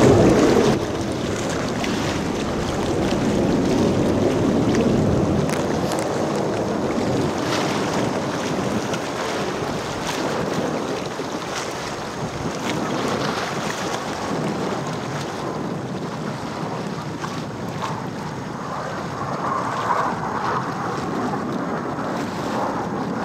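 Jet roar of Blue Angels F/A-18 Hornets flying in formation, a steady rushing noise mixed with wind buffeting the camcorder microphone.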